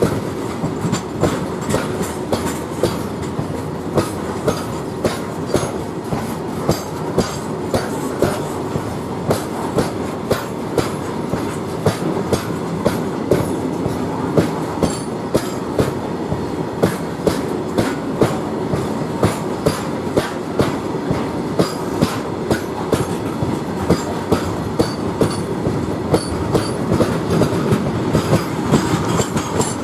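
Loaded coal freight wagons rolling past, their wheels clacking over the rail joints in a steady repeating rhythm over a continuous rumble.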